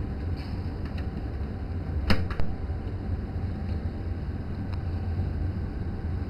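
A steady low hum with a few light clicks and taps as eggs are lifted from the incubator tray and held to the candler, the sharpest about two seconds in.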